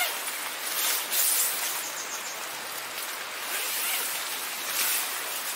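Tent canvas rustling and flapping as the fabric window panel of a tarp-screen tent is rolled up, over a steady outdoor hiss that swells and fades.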